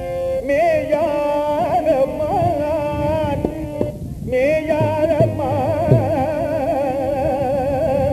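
Music: a melody with constant wavering and sliding ornaments over sustained accompaniment. It breaks off briefly about four seconds in, then resumes with a few low drum-like strokes.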